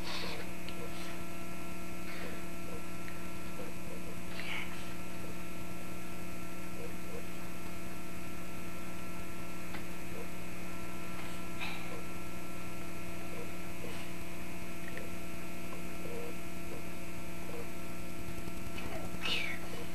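Steady electrical mains hum on an old camcorder recording, with a few faint short taps and scratchy sounds scattered through it.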